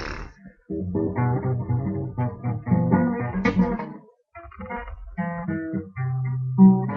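Guitar played with the fingers, no pick: a run of plucked notes and chords, a short break about four seconds in, then more notes ending on a loud low note.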